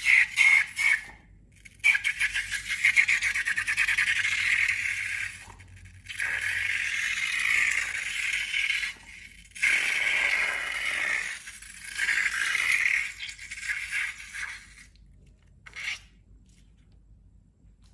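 Slime being worked and mixed, making crackly, scraping sounds in bursts of a few seconds each, with short gaps between them. The last burst is faint and brief, and then it falls quiet.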